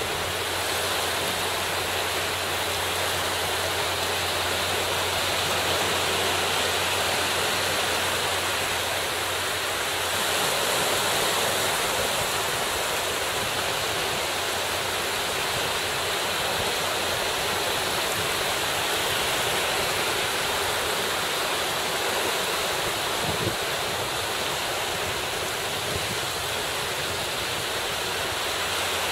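Steady rushing wash of small waves and sea water around the people and kayak, an even, unbroken noise.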